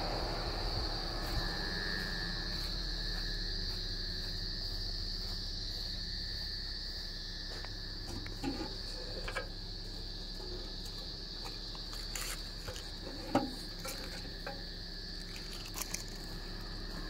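Crickets chirping in a steady high trill, with a second, lower insect tone joining after a second or two. A few soft knocks and rustles come through, the loudest a little past halfway.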